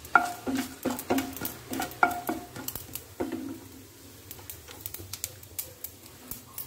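A wooden spatula knocks and scrapes against a metal nonstick kadai, with the pan ringing briefly after the louder knocks in the first few seconds. Between the knocks there are light scattered ticks of tempering seeds and dried red chillies frying in hot oil.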